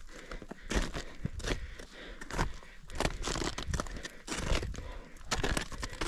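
Irregular crunching and scraping of snow and ice, with a few sharper crunches among softer rustling.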